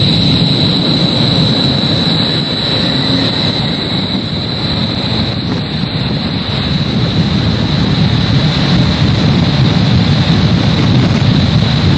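Wind tunnel fans running at speed, a steady loud rush of air with a thin constant high whine over it.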